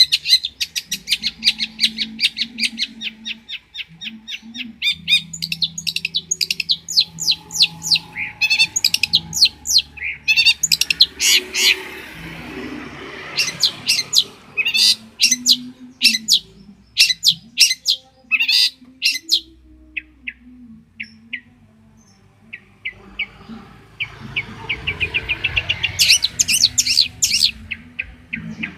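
Long-tailed shrike (cendet) singing: fast runs of sharp chirps and trills. About two-thirds of the way through there is a sparser stretch of a few short notes, then rapid chirping picks up again near the end.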